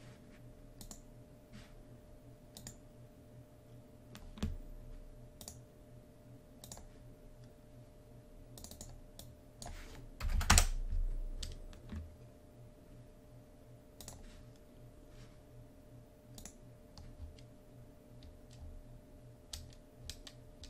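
Computer keyboard typing and clicking: scattered single keystrokes, with a louder knock and low thud about halfway through. A faint steady hum runs underneath.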